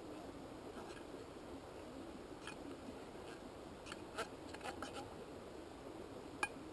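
A few light metal clicks and scrapes from a small camp pot and stove being handled, a quick cluster of them past the middle and one sharper click near the end, over a faint steady hiss.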